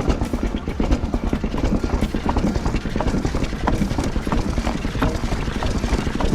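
Mountain bike riding fast over a rough trail: a dense, irregular clatter of knocks and rattles from the bike over a low rumble of tyres and wind.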